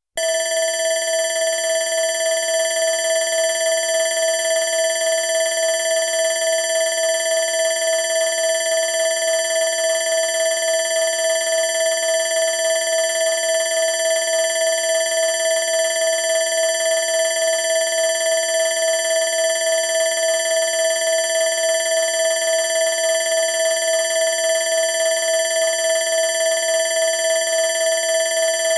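Electronic alarm bell sounding continuously: a loud, steady, ringing tone that pulses rapidly and evenly a few times a second.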